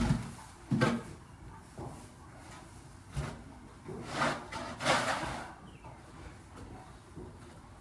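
A few scattered scrapes and knocks, with two louder scraping swishes about four and five seconds in.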